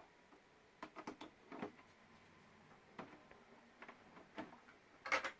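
Scattered small clicks and taps of parts being handled, with a louder, brief rustle or clatter about five seconds in.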